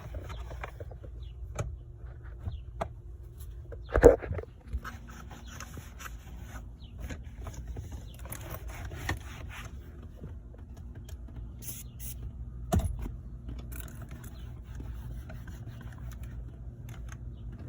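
Rag wiping and rubbing dust off a car's interior trim: scattered rubbing and scraping with small clicks, a sharp knock about four seconds in and a lighter one about two-thirds of the way through.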